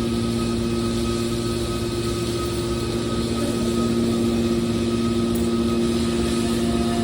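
Hydraulic scrap car baler running: a steady machine hum with a constant pitched whine.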